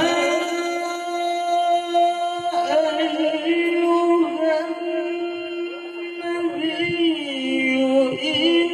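A male qari recites the Quran in the melodic tilawah style, amplified through a microphone. He draws out one long ornamented note that wavers, dips lower about six seconds in and climbs back up near the end.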